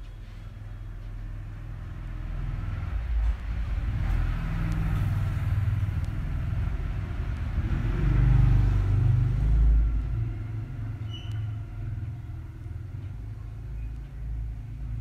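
Low rumble of a passing road vehicle. It swells over several seconds, is loudest about eight to ten seconds in, then fades.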